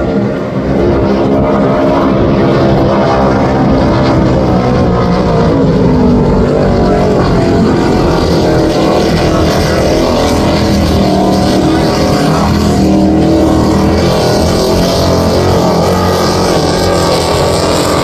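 Offshore racing powerboat's engines running at high speed: a loud, steady engine drone as the boat passes, with the rush of its wake and spray.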